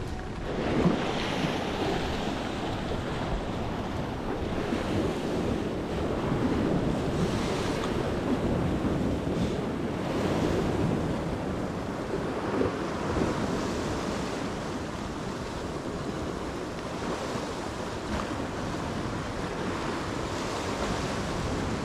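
Sea waves washing against a rocky shore, rising and falling in slow surges, with wind buffeting the microphone.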